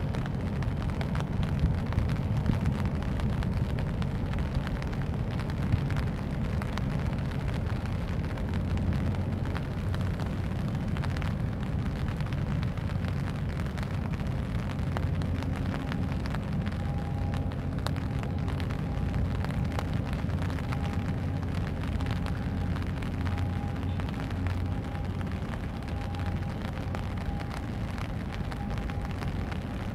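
Rain and wind buffeting the microphone: a steady low rumble sprinkled with small raindrop ticks. A faint steady hum joins about halfway in.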